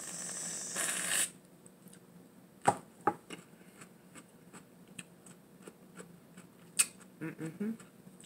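Aerosol whipped cream can spraying with a loud hiss that cuts off about a second in. A few sharp clicks follow, then a short, low murmur from a voice near the end.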